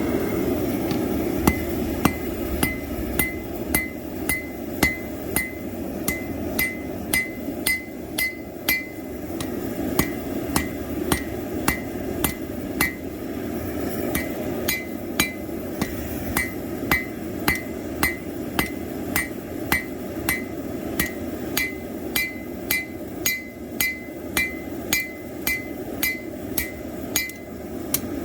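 Hand hammer striking red-hot plow-disc steel on an anvil at an even pace, close to two blows a second, each blow ringing briefly, as the knife's point is forged out. A steady low rush runs underneath.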